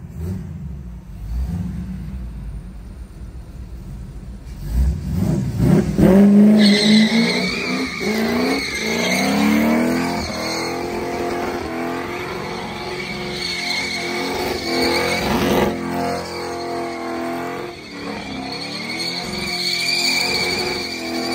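Second-generation Chevrolet Camaro doing a burnout and donuts: the engine runs low for the first few seconds, revs up sharply about five seconds in, then holds at high revs, wavering up and down, while the rear tyres squeal against the concrete.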